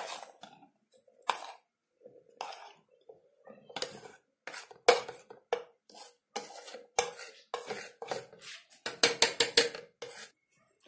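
Spoon and bowl knocking and scraping against a stainless steel mixer-grinder jar as flour is tipped into it: irregular clinks, each with a short metallic ring, and a quick run of them near the end.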